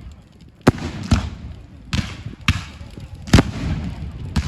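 Fireworks bursting overhead: about six sharp bangs at uneven intervals, each with a short echoing tail.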